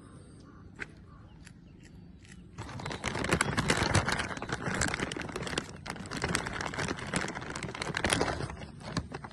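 A plastic snack packet being handled close to the microphone. There is loud crinkling and crackling, starting a few seconds in and lasting about six seconds.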